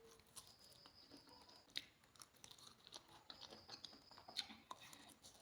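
Faint chewing of a date close to the microphone, with scattered small mouth clicks.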